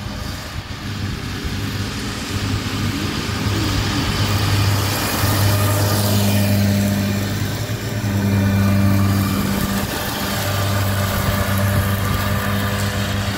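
Tractors with front and rear mowers cutting grass for silage: a steady low engine hum that swells as one tractor and its mowers pass close by about halfway through.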